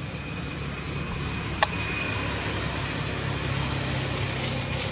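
Steady low mechanical rumble, with one sharp click about a second and a half in.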